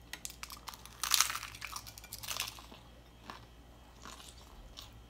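Crisp fried-tortilla tostada topped with shredded beef being bitten and chewed, a run of loud crunches loudest from about a second in, then thinning to softer chewing near the end.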